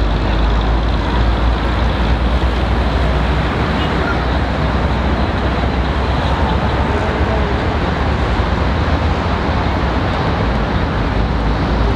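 Steady outdoor hubbub of a large crowd murmuring over a low, even rumble, with no firework bangs.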